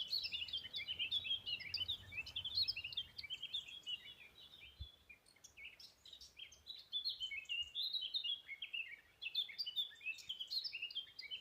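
Songbird singing a rapid, busy song of short high notes, with a quieter lull in the middle before the song picks up again.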